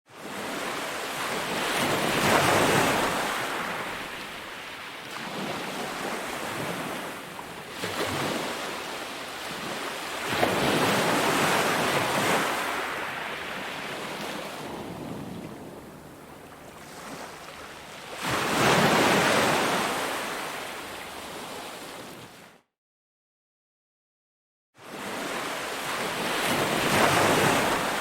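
Ocean waves breaking and washing up a beach, each surge swelling and then fading, about every eight seconds. The sound drops out to dead silence for about two seconds roughly three-quarters of the way through, then a fresh wave comes in.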